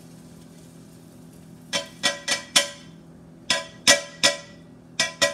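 A frying pan knocked against the rim of a ceramic bowl to empty the cooked vegetables into it: about nine sharp, ringing clinks in uneven groups, starting a little under two seconds in after a faint hiss.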